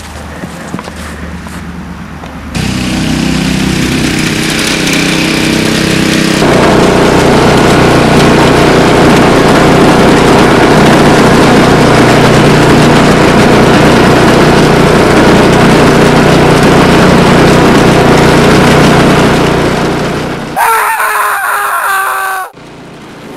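Petrol lawnmower engine starting up about two and a half seconds in, then running loud and steady at full throttle, louder still from about six seconds in. Near the end a higher, wavering sound takes over for a second or two and cuts off suddenly.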